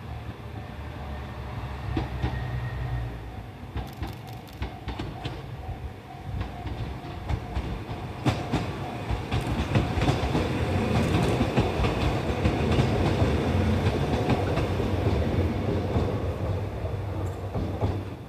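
Mizushima Rinkai Railway MRT300 two-car diesel railcar passing: a low engine drone with wheels clicking over the rail joints, growing louder as it goes by about ten seconds in and falling away near the end.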